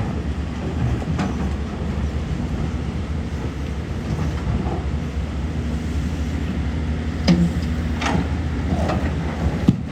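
Excavator's diesel engine running steadily under load, with a few short metallic knocks from the working machine.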